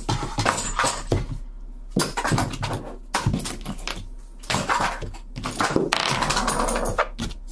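Polymer parts of a disassembled G36-type rifle and its magazine being picked up and set down on a desk mat: a string of light plastic clicks and knocks, with a longer rubbing noise about six seconds in.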